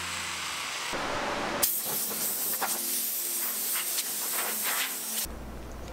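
Compressed-air blow gun hissing as it blows grinding dust off a bare steel go-kart frame, starting a little under two seconds in and stopping shortly before the end.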